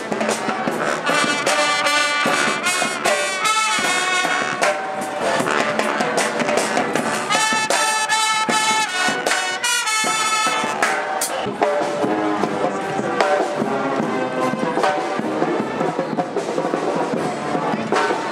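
Street brass band playing live: trumpets and trombones in short, punchy phrases. The melody stands out most clearly in the first ten seconds or so, then blends into a denser mix.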